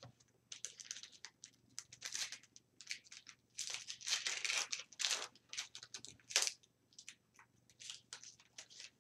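A hockey card pack wrapper being torn open and crinkled, with cards sliding and rustling against each other: a string of irregular crackling rustles, loudest a little past six seconds in.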